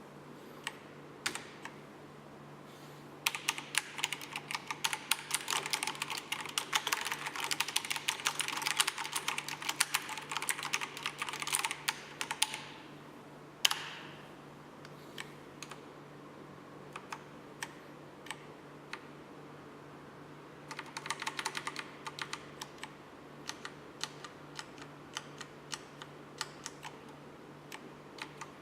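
Typing on a 1STPLAYER Steampunk V2 mechanical keyboard: a few single keystrokes, then a fast flurry of key clicks lasting several seconds, one loud key strike, then slower scattered keystrokes with a second short flurry about two-thirds of the way in.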